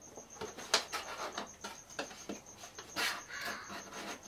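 Laser-cut wooden baseboard parts being handled and lifted off the frame: a couple of sharp wooden knocks, about a second in and again near three seconds, with lighter taps, rubbing and scraping in between.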